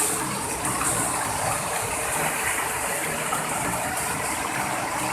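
Waterfall about 150 feet high, its falling water making a steady, even rush of noise.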